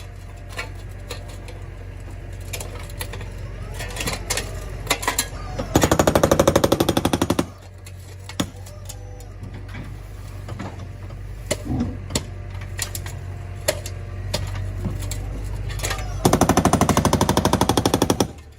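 Jackhammer attachment on a MiniZ 400 electric loader hammering rapidly in two spells, each lasting about two seconds, one a few seconds in and one near the end. Between them a low steady hum from the machine and scattered knocks.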